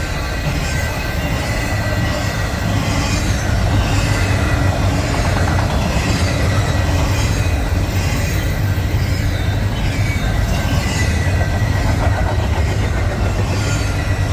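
BNSF double-stack intermodal freight train rolling past in a loud, steady rumble of cars and wheels on the rails, with thin high wheel-squeal tones running over it.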